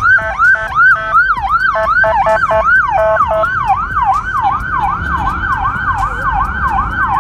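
Police car siren on a Dodge Charger patrol car. For the first three seconds or so it yelps with quick stepped tones mixed in, then settles into a steady fast yelp that sweeps up and down about three times a second.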